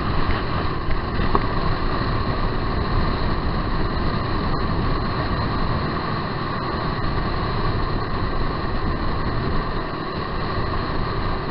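Motorboat running steadily under way, a constant drone of engine mixed with wind and water rush.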